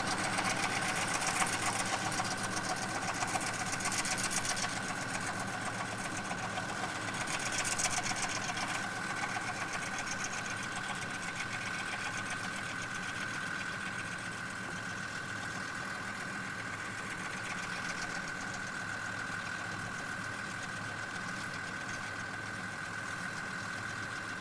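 Zetor tractor's diesel engine running steadily, with a steady high whine alongside; the sound grows somewhat fainter over the first half.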